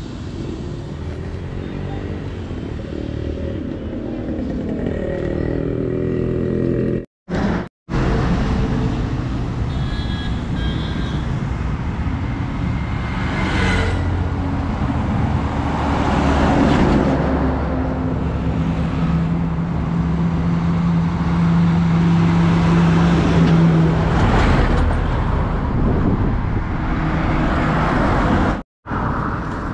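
Road traffic on a highway: vehicle engines and tyre noise passing by, with a truck going by close around the middle.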